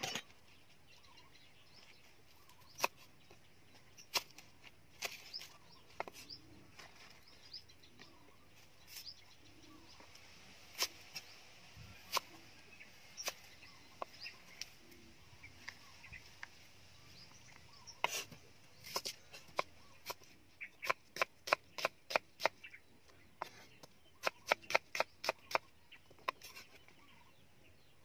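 Cleaver chopping a bundle of leafy green stems on a round wooden chopping block: sharp knocks, scattered at first, then quick runs of about four chops a second in the second half.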